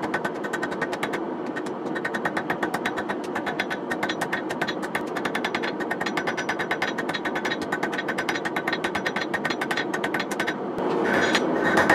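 Hand hammer striking red-hot knife steel on an anvil in a fast, even run of many blows a second, forging and tapering the knife's tang. About 11 seconds in the blows grow louder.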